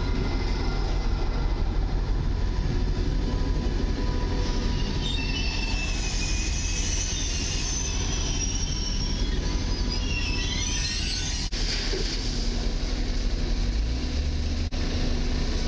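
PKP Intercity ED250 Pendolino electric train moving along the platform close by: a steady rumble of wheels on rail with a thin steady whine from its drive, and high wavering wheel squeals in the middle.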